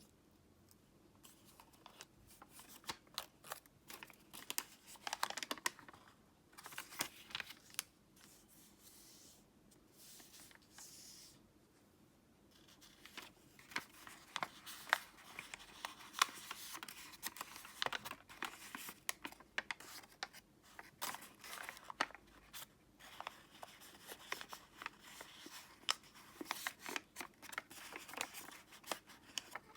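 Origami paper being handled and folded: irregular crinkling and rustling with many short, sharp crisp clicks as the creases are pressed in.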